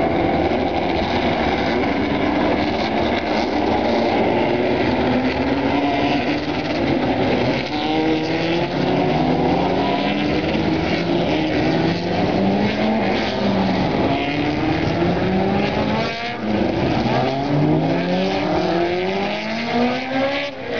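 Several racing car engines revving hard, their pitch climbing and then dropping back again and again as they change gear.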